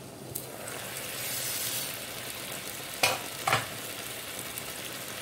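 Pot of asam rebus broth boiling hard, a steady bubbling hiss. Two sharp metallic clanks from the stainless steel pot lid come about three seconds in.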